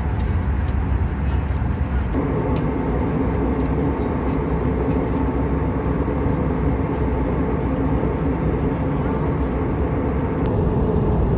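Airbus A320 passenger-cabin noise in flight: a steady rushing roar of airflow and engines. A steady hum joins it about two seconds in.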